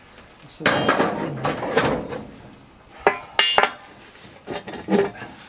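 A long steel crowbar levering a steel girder and rubble in a stone wall opening: a grinding scrape of metal and grit against stone for a second or so, then several sharp metallic clinks with a short ring.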